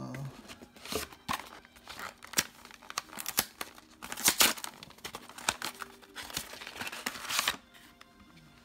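Foil trading-card booster pack wrappers being torn open and crinkled by hand: irregular crackling and rustling, with louder bursts of tearing about four seconds in and again near the end.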